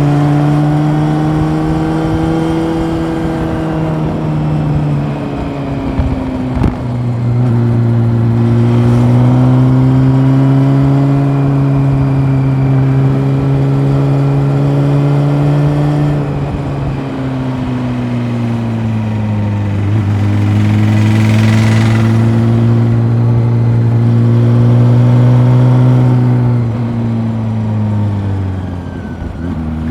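Honda CB400 Super Four's inline-four engine running under steady, relaxed throttle, heard from onboard. Its pitch steps down about five seconds in, rises and falls gently with the throttle through the middle, and drops near the end as the rider eases off.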